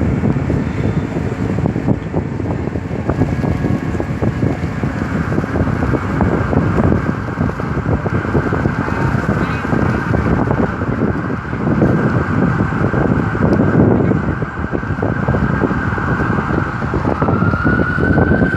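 City street traffic with wind buffeting the microphone. Near the end a siren rises in pitch.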